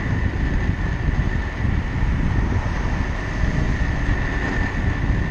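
110 mm urethane inline-skate wheels on NN Sumo frames rolling fast over rough asphalt: a continuous coarse rumble with a steady thin high whine running through it.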